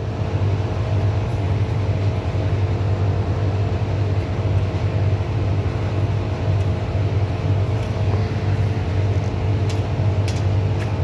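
Drain jetting machine running steadily with a low, constant hum while its hose jets water through a drain line.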